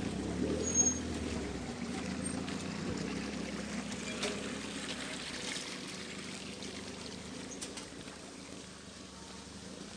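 Water trickling and running steadily over a low, steady hum, growing slowly fainter.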